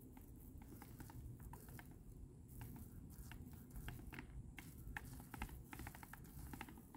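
Paint roller loaded with white paint being rolled over a textured stucco band: a faint run of small, irregular clicks.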